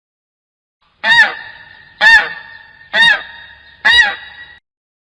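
Goose honking four times, about once a second, after a second of silence; each honk has a quick rise and fall in pitch and trails off.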